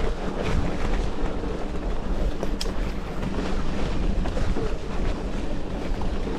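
Wind buffeting an action-camera microphone as a mountain bike is ridden along a forest trail. Tyres run on dirt underneath, with scattered light clicks and rattles from the bike over bumps.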